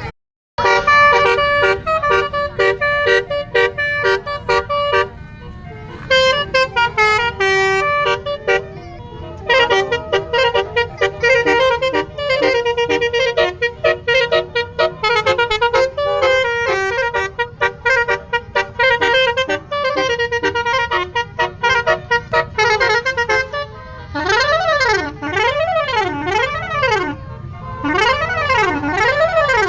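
Telolet multi-tone air horn playing quick melodic runs of short stepped notes with brief gaps. About 24 seconds in it changes to a siren-like wail of repeated rising and falling sweeps. A low steady rumble runs underneath.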